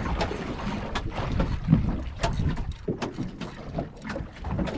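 Wind buffeting the microphone and small waves slapping against the hull of a drifting boat, with scattered sharp knocks and clicks.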